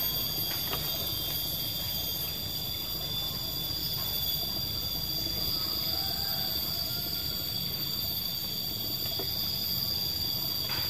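Steady, shrill insect drone: several high tones held at once without a break.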